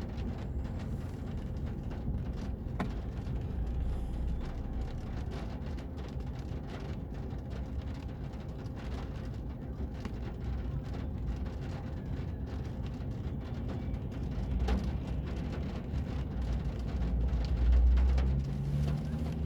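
Rain falling, with many small drop clicks over a steady low rumble that swells near the end.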